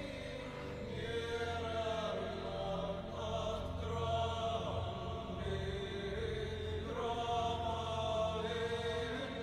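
Dramatic score: a choir chanting long held notes that shift slowly in pitch over a low sustained drone.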